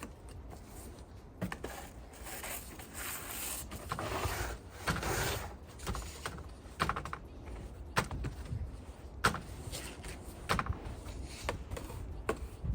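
Snow being cleared with a wide push broom: a few seconds of sweeping hiss, then sharp scraping strokes about every second and a half.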